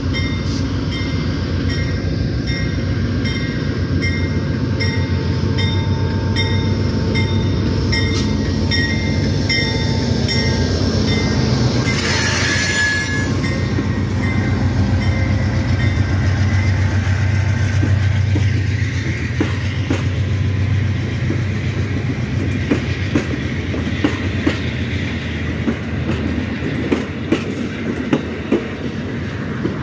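Amtrak passenger train passing close by: the diesel locomotive's engine runs with a steady low rumble while a bell dings regularly for the first ten seconds or so. A short burst of hiss comes about twelve seconds in. In the second half the passenger cars roll past, wheels clicking over the rail joints.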